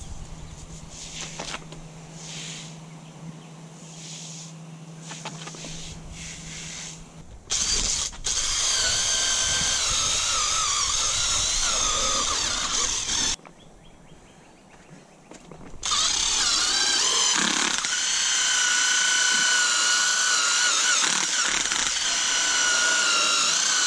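Aerosol carpet foam cleaner sprayed in several short hisses. Then a cordless Ridgid impact driver spins a nylon drill brush to scrub the foam into the carpet, its motor whining steadily and wavering under load, in two long runs with a short pause between.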